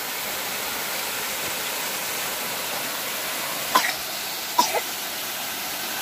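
Steady rush of a small waterfall pouring over rocks. Twice, a little before and a little after the four-second mark, a child makes a short sound from the throat.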